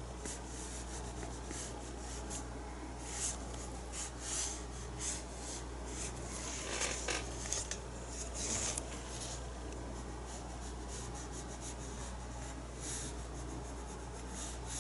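Paintbrush scrubbing acrylic paint onto the painting surface: irregular short scratchy strokes, busiest from about three to nine seconds in, over a faint steady low hum.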